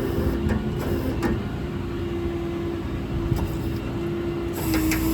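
PTO-driven hydraulics of a service-truck crane running off a 6.7 Cummins diesel while the crane's winch is operated: a steady whine over the running engine. A few sharp clicks come near the start and again near the end, where the whine shifts slightly in pitch.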